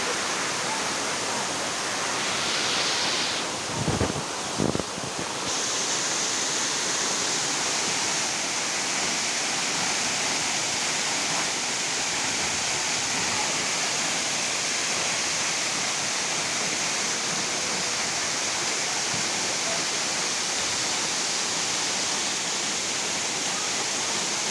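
Waterfall: a steady, even rush of falling water. Two brief low thumps come about four seconds in.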